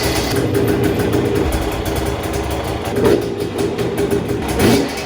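Husqvarna TE250i fuel-injected two-stroke dirt bike engine idling, with two short throttle blips about three and four and a half seconds in.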